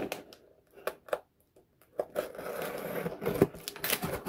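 Packing tape being peeled off a small cardboard box and the cardboard pulled open: a few sharp clicks, a short quiet pause, then about two seconds of scratchy rustling and crackling with sharp clicks.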